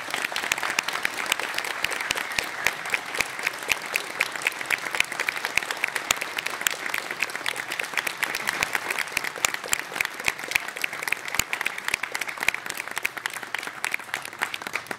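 Audience applauding: many hands clapping in a dense, even patter that cuts off suddenly at the end.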